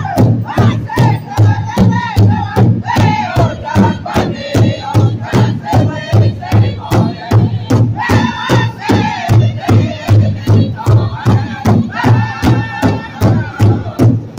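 Powwow drum group striking a large shared hide drum in unison, a steady beat of about three strokes a second, while the men sing a high-pitched chorus together. This is the Northern style of powwow singing.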